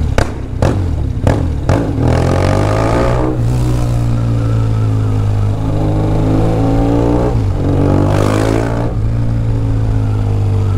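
BMW R1200GS boxer-twin motorcycle engine running under way, with a few sharp cracks in the first two seconds, then rising in pitch twice as it accelerates.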